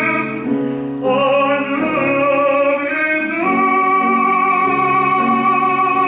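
Classical tenor voice singing the final phrase of the song, moving through a few notes and then holding a long sustained last note for about three seconds near the end.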